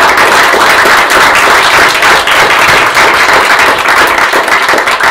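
A small audience applauding: many hands clapping densely and steadily.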